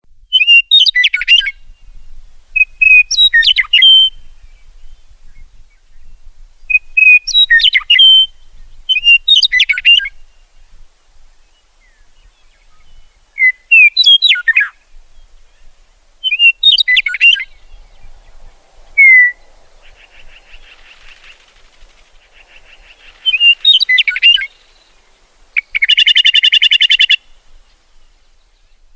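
Meadowlark singing: a series of short, complex whistled song phrases, each about a second long, repeated every few seconds. Near the end comes a harsh, buzzy rattling call.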